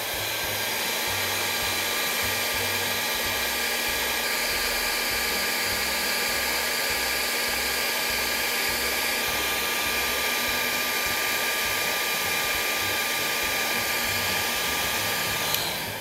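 Electric heat gun blowing hot air at a steady rush, with a steady whine from its fan, shrinking heat-shrink tubing over a wire splice. It is switched off with a click near the end.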